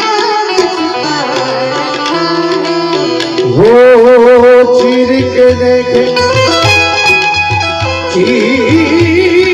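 Live Indian light-music accompaniment: tabla with harmonium and keyboard playing an instrumental passage between sung lines. About three and a half seconds in, a long held note with a wavering pitch comes in over it and is the loudest part.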